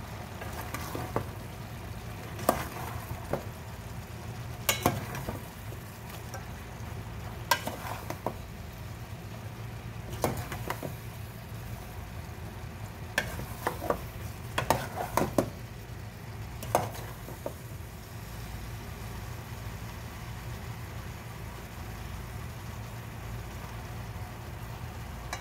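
Metal spoon stirring kangkong and pork in a metal cooking pot, clinking and scraping against the pot several times, sometimes in quick runs, then stopping about two-thirds of the way through. Underneath is a low steady hum and the faint simmer of the dish boiling.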